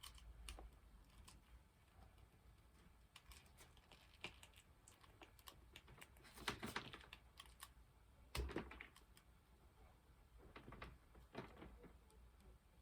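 Faint clicking and scraping of insulation being stripped from the end of a solar PV cable and the cable being handled, with a few louder scrapes about six and a half, eight and a half and eleven seconds in.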